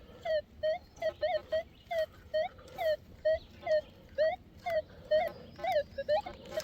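Minelab Manticore metal detector giving a quick run of short warbling target tones, about two to three a second, as the coil is swept back and forth over a buried target. The signal is pretty solid, with some iron in it.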